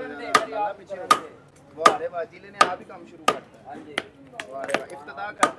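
Hammer striking concrete steps in an even rhythm, about eight sharp blows a little under a second apart, chipping and breaking up the concrete.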